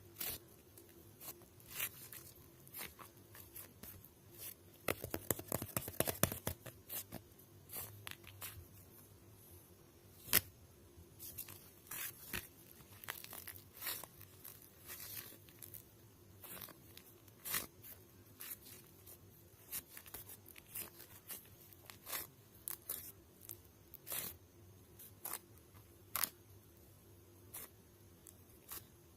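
Irregular small sharp crackles, tearing and crinkling sounds, close up, with a dense run of crackling about five to six seconds in.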